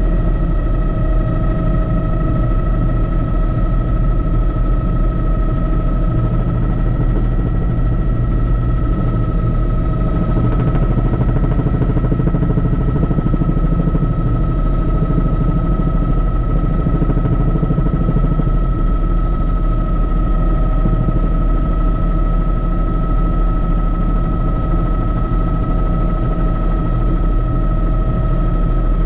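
Helicopter in flight: steady rotor and engine noise with a constant high whine over a heavy low rumble.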